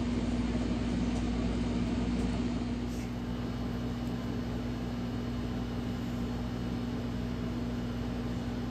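Steady hum with an even hiss, like a fan or appliance motor running, unchanging throughout.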